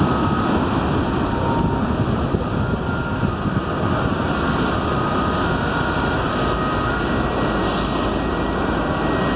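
Jet airliner engines running with a steady, even rush of noise.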